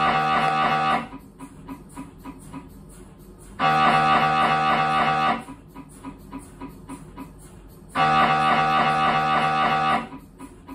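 Siemens Symphony Maestro Class 1.5 T MRI scanner running a scan sequence, its gradient coils giving a loud steady buzzing tone. The tone stops about a second in and returns twice for about two seconds each, with quieter rapid ticking in between.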